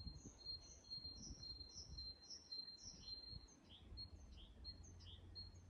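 Faint birdsong: a small songbird repeating short, high notes about twice a second, the later notes falling in pitch, over a faint low rumble.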